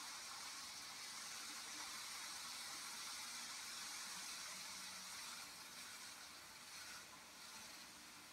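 Z-scale model freight trains running on the layout's track: a faint, steady hiss of tiny wheels and motors. It fades about five seconds in as the nearer train moves off toward the back of the layout.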